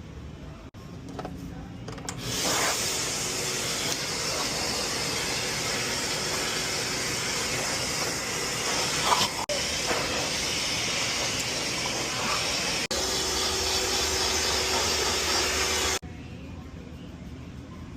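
Pet blow dryer blowing air in a steady hiss with a faint motor hum, switching on a couple of seconds in and cutting off suddenly near the end.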